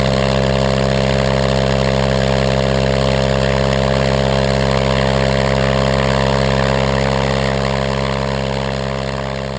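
Walter Minor 4-III inverted four-cylinder aircraft engine running steadily at a constant speed, turning its aluminum ground-adjustable propeller. The sound fades out near the end.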